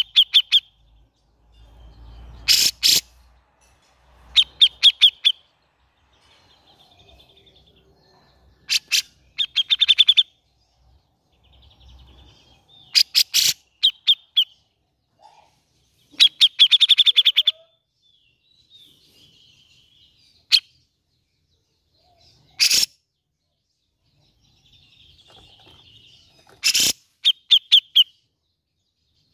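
Cucak jenggot (grey-cheeked bulbul) singing in bouts of rapid, harsh chattering notes every few seconds, broken by a few single sharp, loud calls, with short pauses between.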